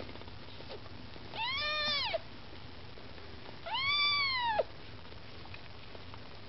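Maine Coon kitten meowing twice, two high-pitched calls that each rise and then fall in pitch, the second slightly longer and louder.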